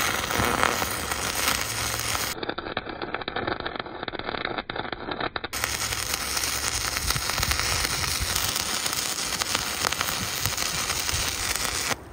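Stick (shielded metal arc) welding arc burning as a flux-coated electrode rod is run along a steel plate: a dense, continuous crackle that cuts off suddenly near the end when the arc is broken.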